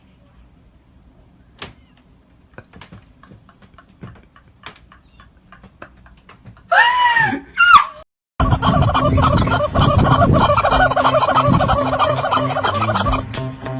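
Faint scattered clicks, then two short calls that rise and fall in pitch. About eight seconds in, a loud, fast rattling call of a fowl starts and runs for about five seconds.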